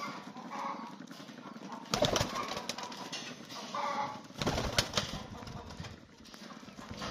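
Old Polish pigeons cooing softly in their loft, with a couple of louder rustling, flapping bursts about two seconds in and again around the fifth second.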